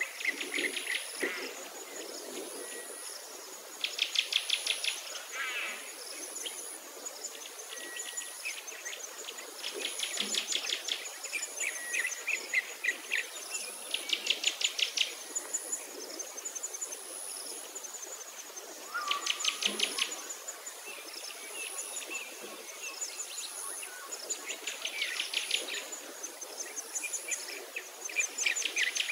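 Natural ambience of insects and birds: a high insect buzz pulsing about once a second, with a rapid trill about a second long repeating every few seconds and scattered bird chirps.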